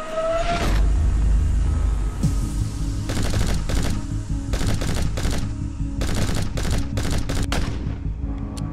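Several short bursts of rapid automatic gunfire, dubbed in as a sound effect, from about three seconds in until shortly before the end. Background music with a low bass line runs throughout.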